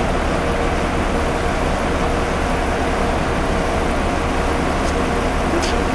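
Steady drone of an idling bus engine close by, with a constant low rumble and a faint steady tone over it.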